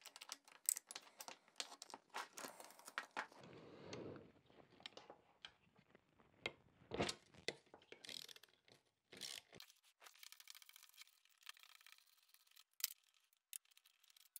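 Faint clicking of a socket ratchet and clinks of metal parts while bolts are undone on a Porsche G50 pedal cluster, with a short rasping noise about four seconds in.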